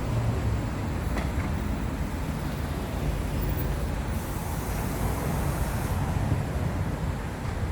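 Steady city street noise with a low traffic rumble, and a brief higher hiss from about four to six seconds in.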